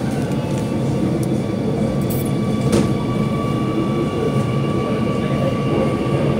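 Singapore MRT Circle Line metro train running through a tunnel, heard from inside the front car: a steady rumble of wheels on rail. A thin, steady high whine joins about a second in, and there is a single sharp click near the middle.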